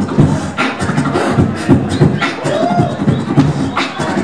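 Live human beatboxing into a handheld microphone: quick, steady rhythm of mouth-made kick drum and snare sounds with deep bass, and a short sung note that rises and falls a little past halfway through.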